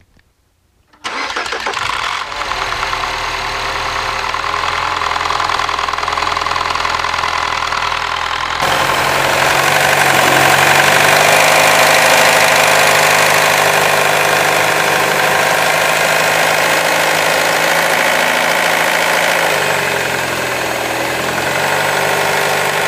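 Mini Cooper S (R56) N14 turbocharged four-cylinder starting about a second in and idling with a timing chain rattle from the front timing cover, the early sign of a failing chain tensioner. About 8 s in the engine sound turns abruptly louder and brighter, picked up close over the valve cover.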